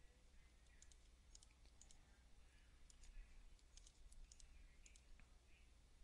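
Faint computer mouse clicks, scattered single and quick double clicks, over quiet room tone with a low hum.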